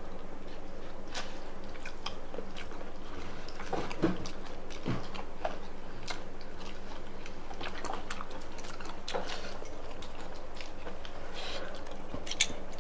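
Close-up eating sounds: chewing and biting with scattered small clicks and smacks, a sharper tick about 4 s in and another near the end, over a steady low hum.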